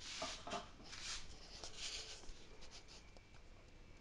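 Soft rustling and brushing handling noise: a few short scrapes over the first two and a half seconds, then fainter.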